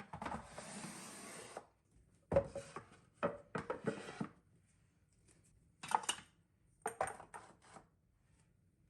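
Hard household items being handled: a steady noise lasting over a second, then several short runs of clinks and knocks as things are set down and moved.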